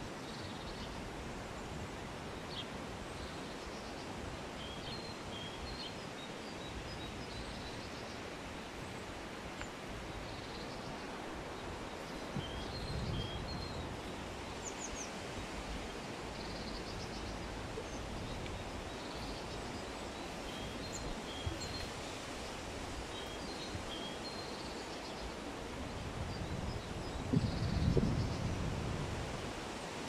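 Outdoor ambience: a steady hiss of breeze through foliage, with faint, short bird chirps repeating throughout. Twice there is a brief low rumble of wind gusting on the microphone, once near the middle and again near the end; the later one is the loudest sound.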